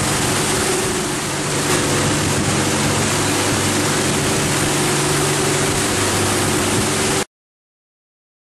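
Boat engines running steadily under way, a drone of several low tones under a loud, even rush of wake water, cutting off abruptly about seven seconds in.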